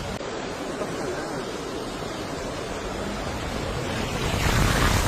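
Heavy storm downpour, a steady rushing noise that grows louder about four seconds in.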